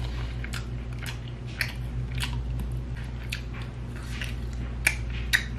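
A person chewing chicken close to the microphone, with irregular wet mouth clicks and lip smacks, over a steady low hum.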